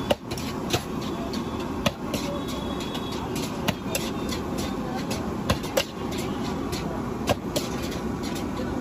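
Metal ladle clanking and scraping against a large iron wok as fried rice is stirred and tossed, in irregular sharp clanks about once or twice a second. A steady low rumble runs underneath.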